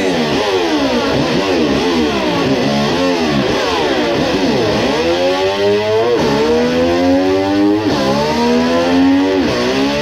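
Electric slide guitar imitating a motorcycle: quick swooping slides up and down, then from about halfway long rising slides that each drop back and climb again, like an engine revving up through the gears.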